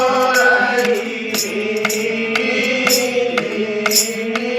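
Devotional bhajan music: a male singer draws out the last word of a line over a sustained melodic accompaniment, with a steady percussion beat of about two strikes a second.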